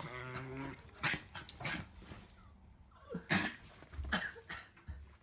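Dog sneezing about five times, each a short, sharp burst.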